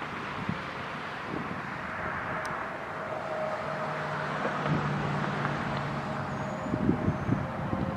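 Wind on the microphone over the noise of road traffic, with a faint steady tone underneath.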